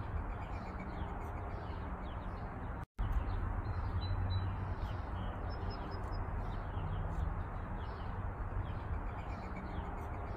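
Small birds chirping repeatedly over a steady outdoor background with a low rumble; the sound cuts out for a split second about three seconds in.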